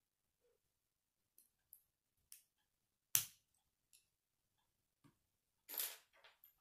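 K'nex plastic rods, connectors and wheel clicking together as they are pushed into place. Light scattered clicks, one sharp snap about three seconds in, and a short plastic rattle near the end.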